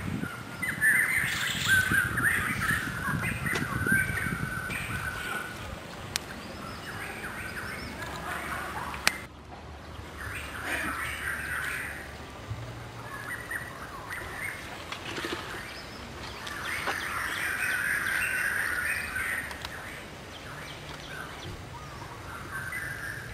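Birds chirping and calling in several bouts, with a single sharp click about nine seconds in.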